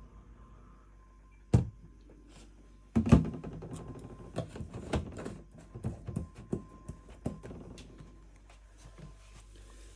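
A single sharp thunk about one and a half seconds in, then a dense run of knocks, clicks and rustling for about five seconds as things are handled, fading out near the end.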